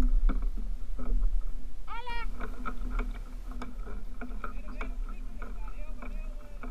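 Clicks and knocks of fishing gear being handled on a kayak, a fish being unhooked and a jigging rod and reel worked, over a steady low rumble of wind on the camera microphone. About two seconds in comes one short high squeal that rises and then falls.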